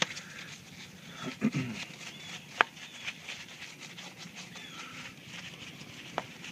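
Small lug brush scrubbing around the lug nuts of a soapy alloy wheel, its bristles rasping in quick strokes, with three sharp knocks, the loudest about two and a half seconds in.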